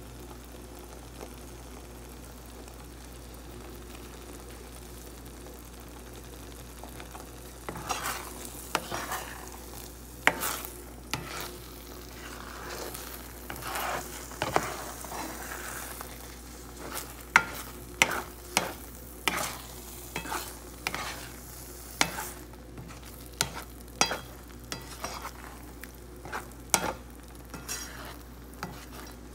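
Spatula stirring sardines and egg in a frying pan, over the low sound of the sauce cooking. From about eight seconds in, the spatula scrapes and taps against the pan in short strokes, roughly one a second.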